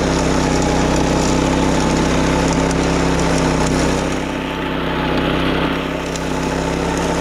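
Engine of a wing mower (self-propelled levee grass mower) running steadily at working speed. It softens briefly between about four and six seconds in.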